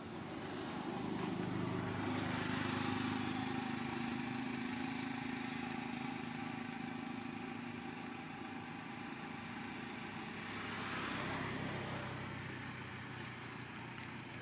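A motor vehicle's engine running past, its hum swelling up and then fading, with a second swell about eleven seconds in.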